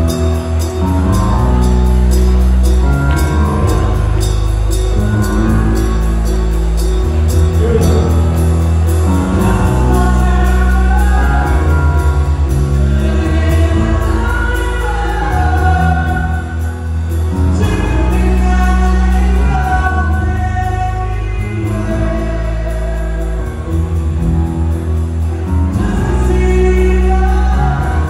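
Live band playing amplified pop music: bass guitar, electric guitar and keyboard over a steady beat, with singing.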